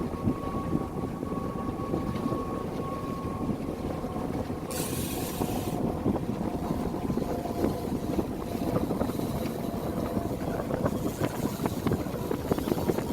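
A boat motor running steadily under wind buffeting the microphone, with a brief hiss lasting about a second about five seconds in.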